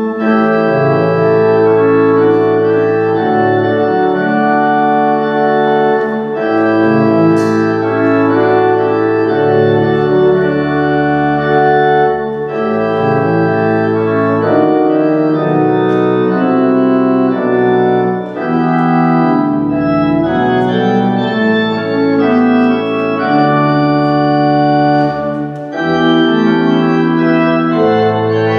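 Church organ playing slow, sustained chords, with the bass notes changing every second or two.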